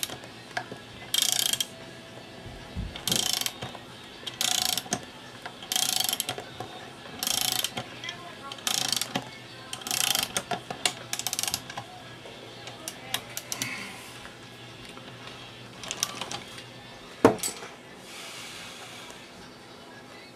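Hand file rasping across a metal part in even back-and-forth strokes, one stroke about every second and a half, filing it down flat. The strokes give way to a few lighter scrapes, then one sharp metallic knock about 17 seconds in.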